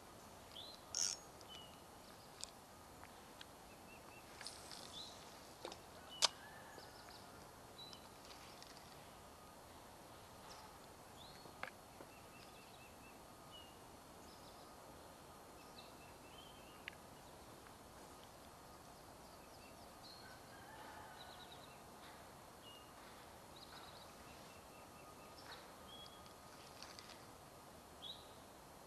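Quiet open-air ambience with scattered short, high bird chirps and calls, broken by a few sharp clicks, the loudest about six seconds in.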